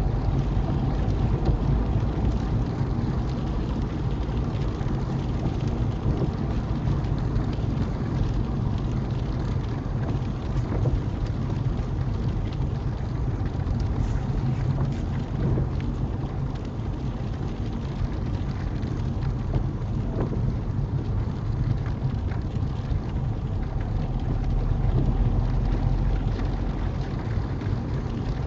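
Small car driving on a wet motorway, heard from inside the cabin: a steady low road-and-engine rumble with tyre noise and rain hitting the windscreen.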